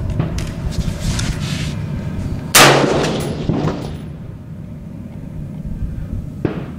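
A single loud shot from a Savage 111 rifle in 30-06, its report fading away over about a second and a half. A short faint click comes near the end, over a steady low rumble.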